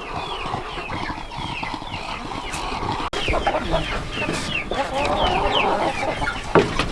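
Chickens clucking, mixed with many short, high, falling peeps from young chicks. A sharp knock comes near the end.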